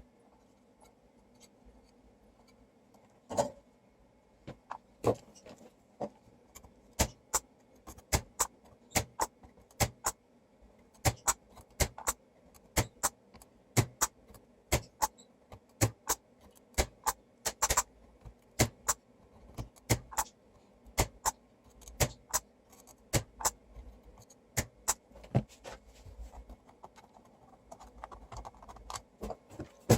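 A run of sharp clicks and taps, about one to two a second, starting a few seconds in: tools and small metal parts being handled during repair work on an amplifier.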